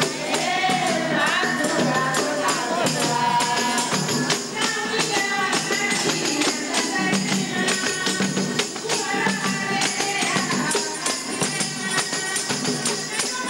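A group of women singing together in chorus over a steady beat of hand-struck frame drums.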